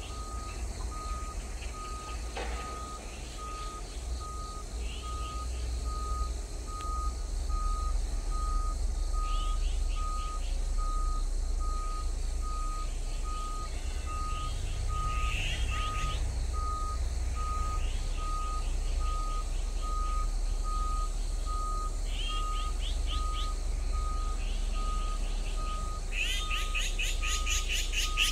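Azure-winged magpies calling in short bursts of rapid, harsh notes every few seconds, loudest near the end. Throughout, a steady electronic beep repeats about twice a second over a low rumble.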